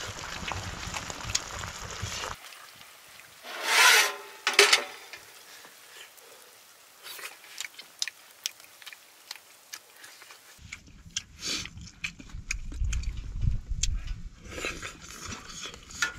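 Chopsticks stirring and scraping dak-galbi in a cast-iron pan, heard as rubbing and rasping. The two loudest scrapes come a little under four seconds in. Scattered light clicks over a low rumble fill the last few seconds.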